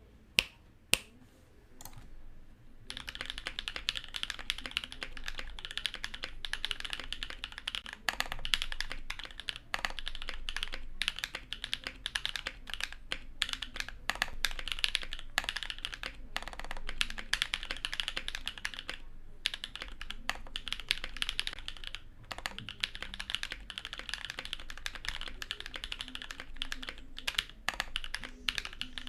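Fast continuous typing on a custom mechanical keyboard in an acrylic Tofu65 case, with long-stem linear switches (Kailh Pro Burgundy stems in Gateron housings, lubed with 205g0 and filmed) and lubed Everglide stabilisers. A few sharp single clicks in the first two seconds, then steady rapid typing from about three seconds in, with a couple of brief pauses.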